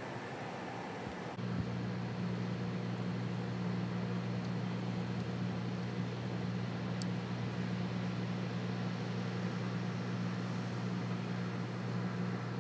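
Smoking underground electrical vault giving off a steady low electrical hum over a steady hiss. The hum comes in about a second and a half in, when the sound is heard close to the grate.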